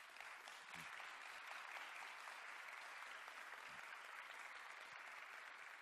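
Audience applauding: steady, even clapping from a seated crowd in a hall, heard faintly.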